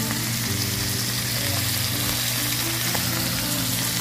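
Sirloin steaks searing in olive oil in a hot cast-iron skillet: a steady sizzling hiss of frying.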